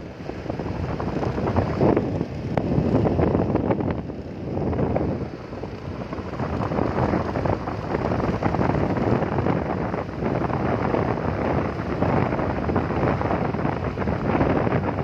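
Wind buffeting the microphone of a moving vehicle, surging and easing every second or two, over a low running rumble.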